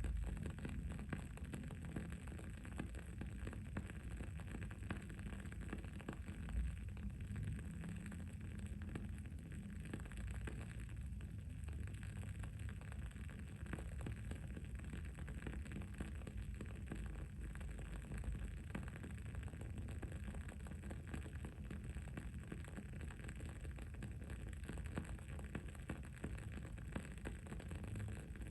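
Wooden-wick candle burning with a steady, fine crackle of many small pops, over a low, steady background rumble.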